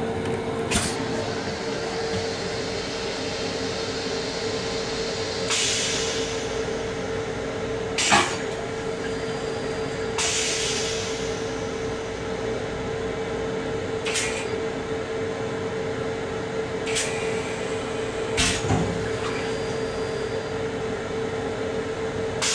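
Steady hum of a Long Island Rail Road M7 railcar heard from inside its small restroom, with a few sharp knocks now and then and two short hisses of about a second each.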